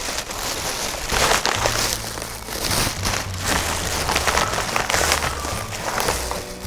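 Thin plastic shopping bag rustling and crinkling as hands rummage through it, a dense run of small crackles without a break.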